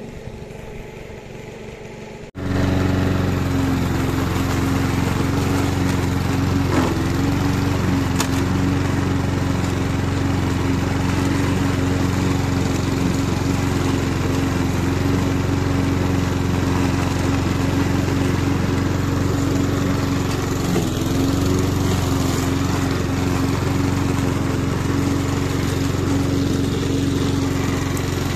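Petrol roller lawn mower engine running steadily at an even speed. It starts abruptly about two seconds in, after a quieter stretch.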